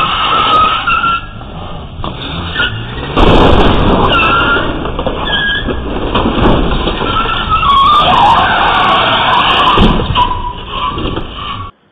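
An SUV's engine revving hard with its tyres squealing and skidding on a concrete driveway, with a loud crash about three seconds in as it strikes the brick planter wall. Heard thin through a security camera's microphone, and it cuts off abruptly near the end.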